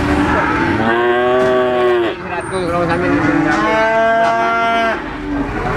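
Cattle mooing: two long, drawn-out calls, each lasting over a second, the second starting about a second after the first ends.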